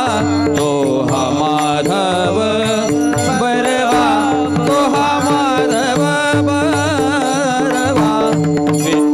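Marathi kirtan devotional music: a wavering, ornamented melody line over a steady held drone note, with low drum strokes underneath.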